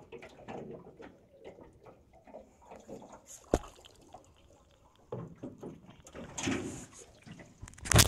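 Handling noise from a hooked peacock bass and its lure over an aluminium boat: scattered knocks and rattles, a sharp click about three and a half seconds in, and a loud burst of rapid knocking and rattling near the end.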